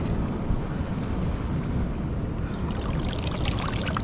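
Wind buffeting the microphone over water washing around the rocks. Light splashing comes in during the last second or so.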